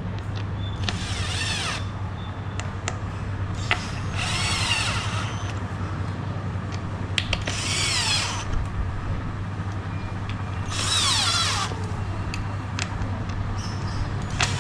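Electric power drill running in four short bursts of about a second each, its motor whine rising and falling as it spins up and winds down, with scattered knocks between bursts over a steady low hum.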